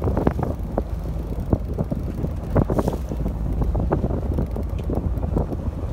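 Wind buffeting the microphone aboard a fishing boat over a steady low rumble, with irregular short knocks and clicks throughout.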